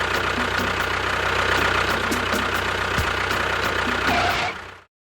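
A motor running steadily with a low hum and a faint regular ticking, fading out and stopping shortly before the end.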